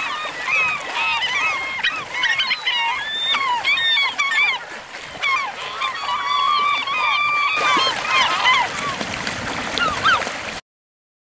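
A flock of gulls calling over one another, many short rising-and-falling cries overlapping. The sound cuts off suddenly near the end.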